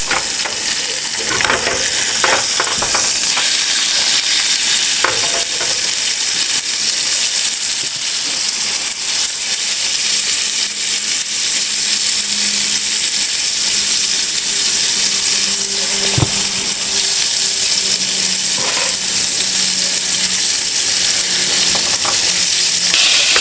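Burger patties sizzling steadily in a small camp frying pan, with a few short knocks of a utensil against the pan.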